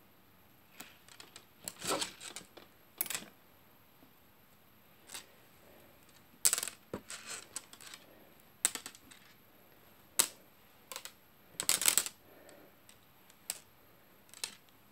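Lace trim being handled and unrolled on a wooden table: scattered light clicks and soft rustles at an irregular pace, with a few louder brushes about two, six and a half, and twelve seconds in.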